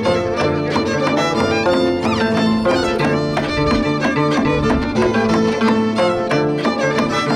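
Violin and Andean harp playing a herranza tune together: the fiddle carries the bowed melody over plucked harp notes and a repeating bass.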